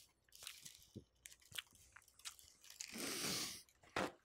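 Close-miked eating sounds: crunchy bites and chewing mixed with scattered small clicks from handling food and wrappers. The loudest part is one longer crunching burst about three seconds in, followed by a sharp click near the end.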